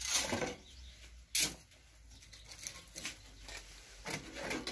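Rustling and scraping as bread and a scoop of feed mix are put into a wooden rabbit hutch, with a sharp knock about a second and a half in.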